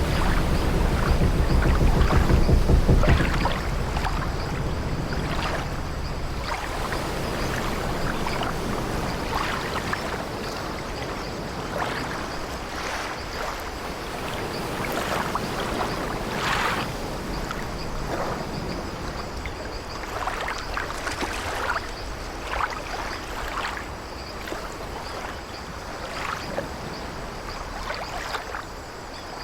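Creaking of an old wooden ship's timbers over the wash of sea waves. A deep surge of water fills the first few seconds, then short scattered creaks sound over a softer, steady wash.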